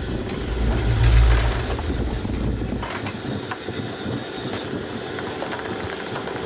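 Boat engine rumble over churning wake water, with scattered light knocks and rattles. The deep rumble drops away about three seconds in, leaving the water noise.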